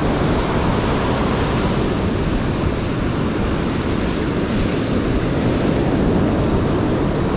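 Ocean surf breaking and washing up the beach around the listener: a loud, steady rush of water.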